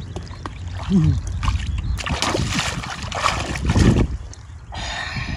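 Water splashing and sloshing in irregular bursts as someone works in the water, with a brief vocal sound about a second in.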